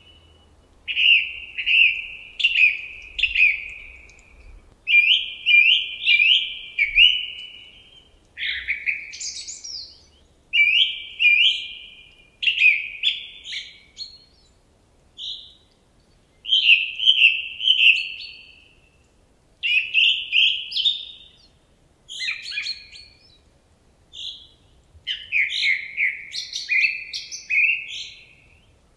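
A songbird singing: short, bright phrases of rapid repeated notes, one after another with brief pauses between them.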